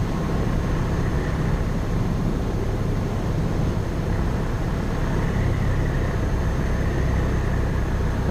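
Cessna 172 light aircraft heard from inside the cabin with its engine throttled back to idle for landing: a steady low drone with airflow noise as the plane settles onto and rolls along the runway.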